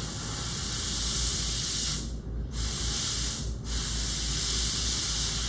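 A pressurised jet hissing at the bench, such as a dental lab air or steam nozzle, in three blasts with two short breaks, about two and three and a half seconds in.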